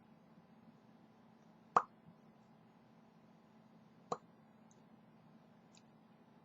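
Two short, sharp hiccups, about two seconds apart, over a faint low hum.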